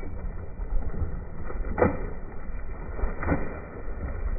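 Water splashing as a hooked fish thrashes at the surface beside the boat: two short splashes about a second and a half apart, the first louder, over a low wind rumble.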